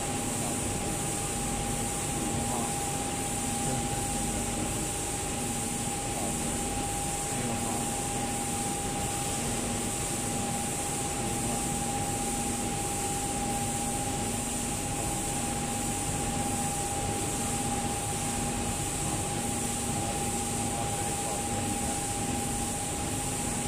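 Steady hum of running machinery with a constant mid-pitched tone, and a low tone pulsing on and off about once a second.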